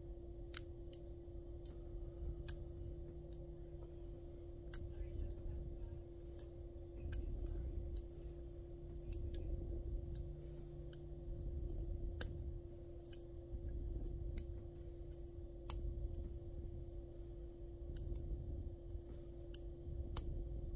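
Light metallic clicks and ticks at irregular intervals from a hook pick working the pin stack of a Guard Security padlock during single pin picking, over a steady low hum.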